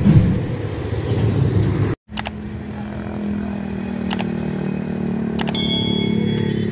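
Engine rumble that cuts off abruptly about two seconds in, then a heavy truck's diesel engine running at steady revs while stalled on a steep climb. Near the end come a click and a short bell-like chime, the sound effect of an on-screen subscribe animation.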